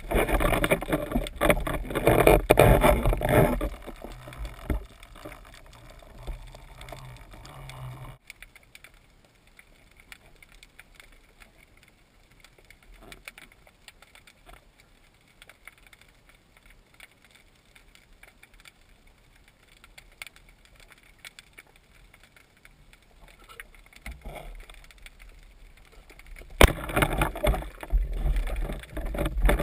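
Water splashing and sloshing around a freediver's camera for the first few seconds, fading into a long quieter stretch of underwater sound with faint clicks. Loud splashing returns near the end.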